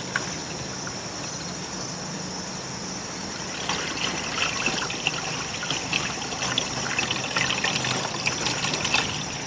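Liquid poured from a stainless steel stockpot through a plastic funnel into a glass carboy, trickling steadily, over a steady hum. From about three and a half seconds in come irregular splashing gurgles as the pour grows and the funnel spout, clogged with plant matter, backs up.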